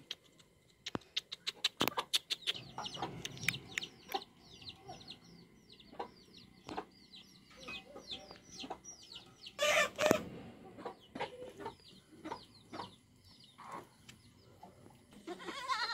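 Chickens clucking and peeping: a long run of quick, high calls, each falling in pitch, several a second. A few sharp clicks come in the first few seconds, and a brief loud rustle about ten seconds in.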